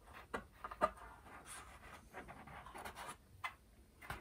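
Faint scratching and a few small sharp clicks of hands handling a dismantled loudspeaker's voice coil.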